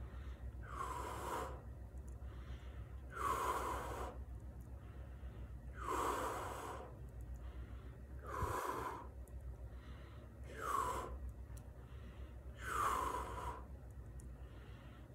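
A man breathing heavily: loud, deep breaths about every two seconds, seven in the stretch, over a steady low hum.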